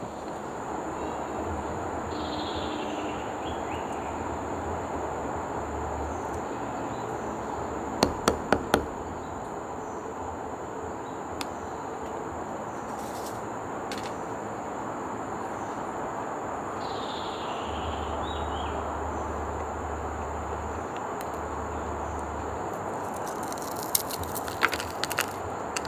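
Steady background hiss with a thin high whine, broken twice by a short falling chirp. About 8 s in come four sharp cracks, and near the end a crisp crackle of cracks as a puffed-amaranth rajgira ladoo is snapped apart by hand.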